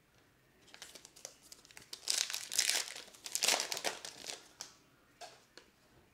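Crinkly wrapper of a sealed trading-card pack being torn open and crumpled by hand, a run of rustling, crackling bursts loudest in the middle, fading to a couple of faint ticks near the end.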